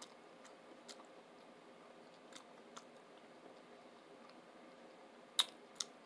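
Faint chewing of a mouthful of loaded tuna sub, with scattered small mouth clicks and two sharper clicks near the end.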